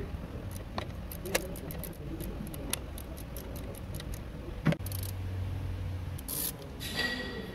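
Hand work on a car's alternator drive belt: scattered metallic clicks and taps of tools and parts being handled, with one sharper knock a little before five seconds in. A short low hum follows, and a brief hiss comes near the end.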